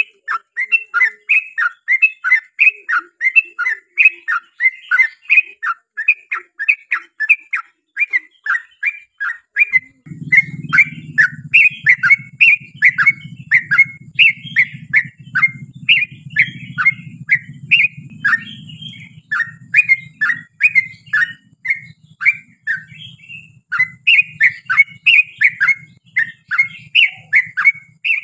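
Yellow-vented bulbul (trucukan) singing a long unbroken run of short notes, about three a second, each sliding down in pitch. A low steady hum joins about ten seconds in.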